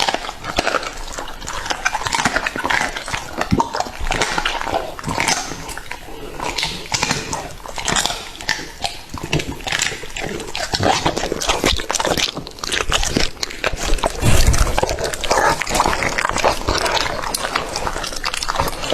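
A dog chewing and crunching raw chicken: a dense, irregular run of wet crunches and clicks that goes on without pause.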